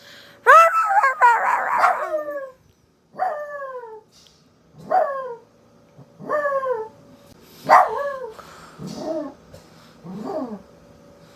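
Dog howling in a series of short calls, each falling in pitch, repeated every second or two, with a denser, overlapping burst near the start.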